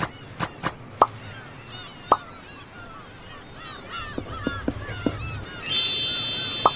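Intro sound effects over many short chirping bird calls: a string of quick cartoon pops, each dropping sharply in pitch. About three-quarters of the way through, a bright sustained chime chord comes in and holds.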